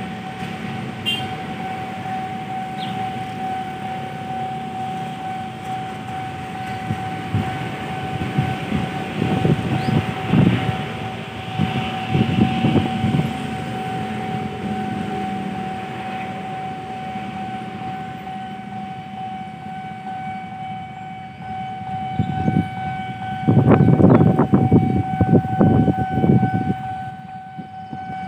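Railway level-crossing warning alarm sounding one steady, unbroken tone while the barrier is down. Louder low rumbling noise swells over it about a third of the way in and again near the end.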